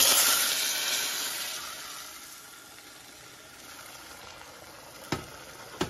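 Hot sesame-oil tempering of mustard seeds and curry leaves sizzling loudly as mutton broth is poured into the saucepan. The hiss dies down over about two seconds to a low steady sizzle, with two light knocks near the end.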